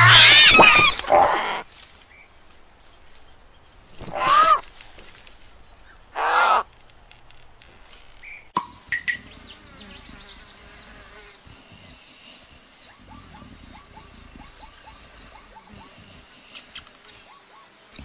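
Bird chicks squawking, then two short caws about two seconds apart. After a sudden change, a steady high-pitched insect drone of savanna ambience.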